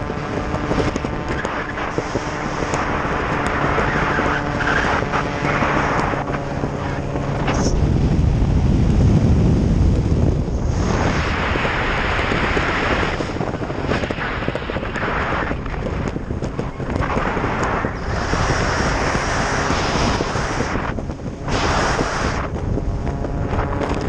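Wind rushing and buffeting the microphone of a skydiver's camera under an open parachute canopy, swelling and easing in gusts. A steady droning tone runs beneath it for the first several seconds.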